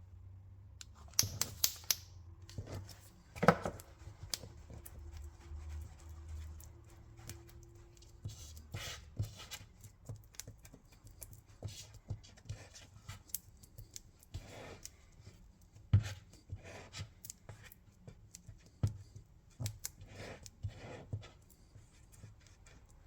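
Two-part 5-minute clear epoxy being stirred and scraped together by hand: irregular scraping and clicking strokes, with a few sharper taps.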